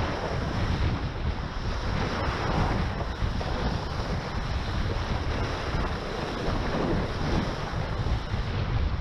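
Wind buffeting the microphone over water rushing and spraying past the hulls of a Tornado catamaran sailing fast downwind at about 22 mph, a steady rushing noise with a deep rumble.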